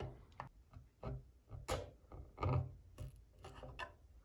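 Hands rubbing and pressing a plastic drain adapter in a pottery wheel's drain outlet: about six short scrapes, some with a dull knock.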